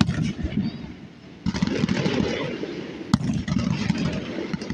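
Fireworks going off: a burst starts suddenly about a second and a half in and trails off into a rumble with crackling, and a single sharp bang comes a little past three seconds.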